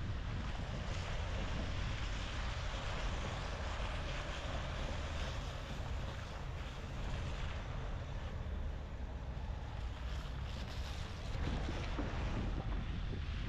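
Dacia Duster driving: a steady low rumble of engine and road noise under a broad hiss, growing a little louder about eleven seconds in.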